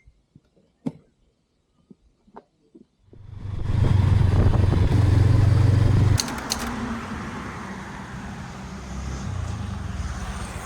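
A few faint scattered clicks, then about three seconds in the loud low rumble of a road vehicle builds up and holds. It drops to a lower, steady traffic noise a little after six seconds in.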